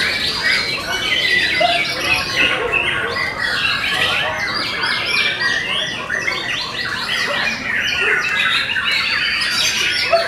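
White-rumped shamas (murai batu) singing, a dense unbroken mix of overlapping whistled phrases and calls from several birds at once.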